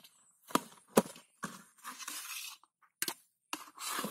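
An aluminium pot and the bowl of bait set in its mouth being handled: three sharp knocks or clinks, with stretches of scraping and rustling between them.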